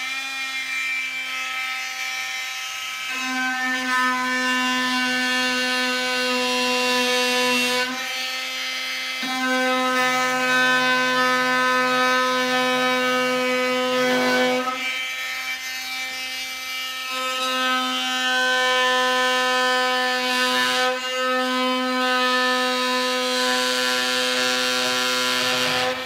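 Oscillating multi-tool running with a freshly resharpened blade, cutting. It speeds up at the start, then holds a steady buzz that grows louder in several stretches as the blade bites into the material and eases between cuts.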